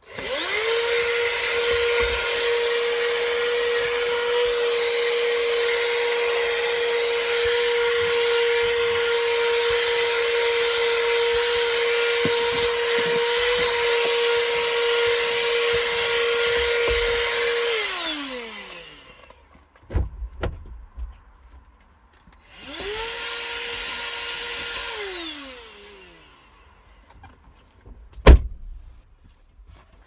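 Vacuum cleaner running steadily with a high whine for about 18 seconds, then switched off and winding down. After a few knocks it runs again for about three seconds, spinning up and winding down, and near the end there is one sharp, loud knock.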